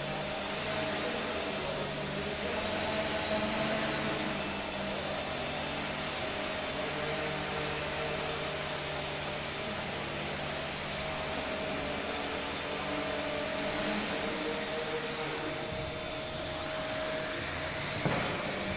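Small electric motor and propeller of a foam RC model plane running steadily while the plane stands on its tail. Near the end the whine rises in pitch as the throttle is opened for takeoff, with a short knock just before the end.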